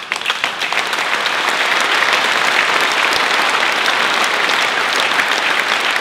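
A large crowd applauding, a dense patter of many hands clapping that swells up at the start and then holds steady.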